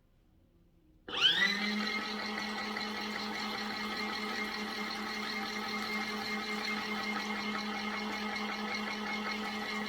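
Small electric motor of a mini portable washing machine starting about a second in, its pitch rising quickly to a steady hum, then running evenly.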